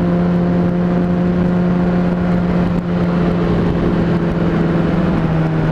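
Honda CBR600RR inline-four engine running at a steady cruising speed, with wind rush over the microphone. The engine note drops slightly near the end as the throttle eases off.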